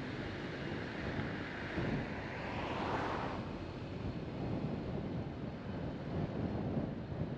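Road and wind noise from a car being driven: a steady rush that swells about three seconds in and falls away again.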